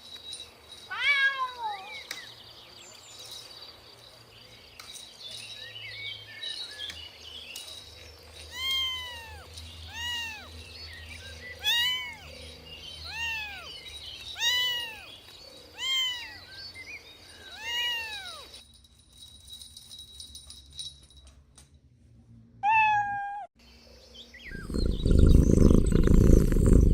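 Kitten meowing over and over: about nine short meows, each rising and falling in pitch, most of them in an even series about one and a half seconds apart. Near the end a loud low rumble takes over.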